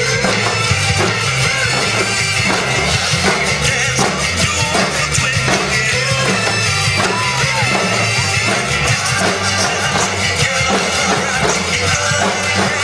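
Large drum ensemble playing a fast, driving rhythm together on many drums, with cymbals.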